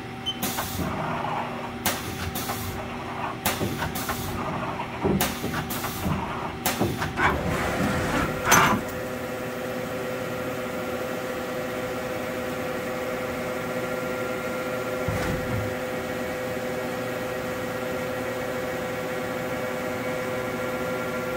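Haas SL-10 CNC lathe running a cycle: clicks and clunks from the 12-position turret and slides moving over the first eight seconds or so, ending in one louder clunk. After that the machine runs with a steady hum and whine.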